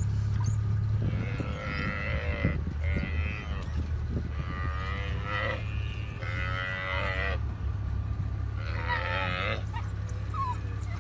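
African buffalo calf bawling in distress as a pack of African wild dogs pulls it down and feeds on it: about five drawn-out calls, each a second or so long, over a steady low rumble.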